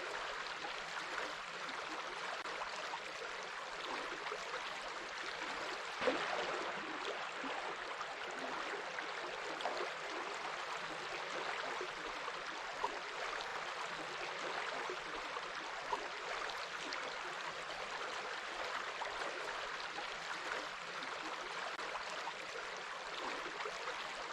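Flowing water running steadily, with small splashes and gurgles throughout and a slightly louder splash about six seconds in.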